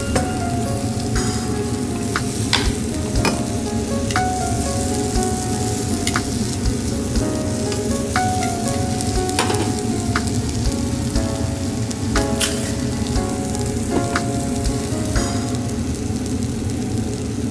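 Onion rings sizzling and frying in oil in a non-stick frying pan, with scattered sharp clicks through it.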